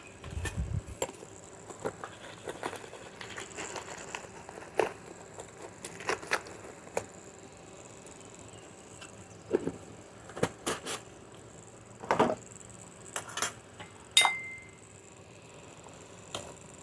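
Cooking utensils tapping and clinking against a wok and seasoning containers, with irregular sharp clinks and one brief ringing clink near the end.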